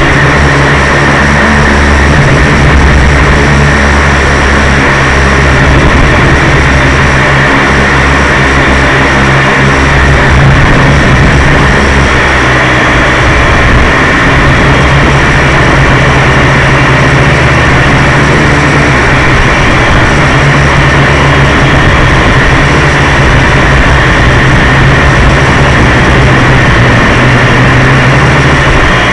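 Syma X1 toy quadcopter's small electric motors and propellers whirring loud and steady, heard up close through its onboard camera's microphone, with wind rushing over the microphone.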